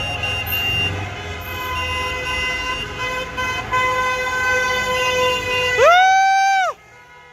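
Car horns honking in celebration from passing traffic: several long, steady horn tones overlapping, over the low rumble of engines. Near the end, one very loud horn blast close by swoops up into a held note and cuts off suddenly.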